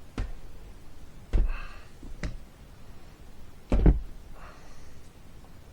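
Four knocks and thuds of things being handled and set down on a workbench, the loudest about four seconds in.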